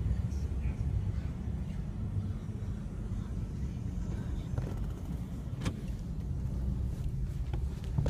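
A car running, heard from inside the cabin as a steady low rumble, with a single sharp click a little past halfway.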